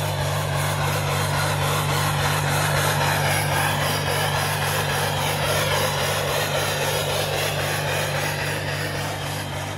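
Jeep Grand Cherokee engine held at steady high revs while its tyres spin and churn in deep snow, the SUV stuck. The engine note stays at one pitch, with a rough hiss of spinning tyres over it.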